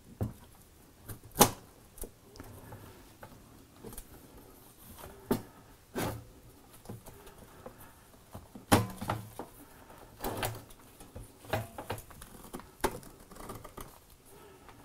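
Sheet-metal cover of a Qinsi QS-5100 reflow oven being lifted off and handled by hand: a string of irregular metallic knocks and clicks with rustling handling between them. The sharpest knocks come about a second and a half in and near nine seconds.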